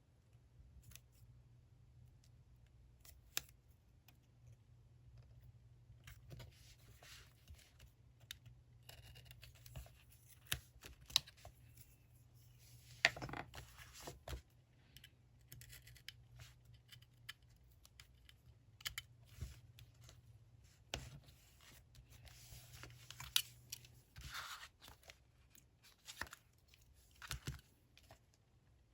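Quiet scissors snipping through paper, with scattered small clicks and short stretches of paper rustling.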